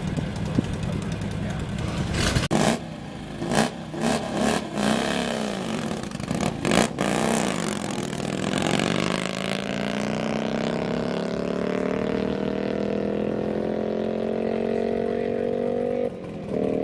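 A land-speed racing vehicle's engine: a few sharp throttle bursts, then a long, steady acceleration with the engine pitch climbing slowly for several seconds, broken briefly once near the end.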